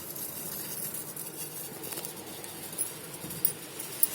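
A pot of kashayam, water with cinnamon, cloves and crushed ginger, simmering on the stove: a steady soft hiss with a few faint clicks.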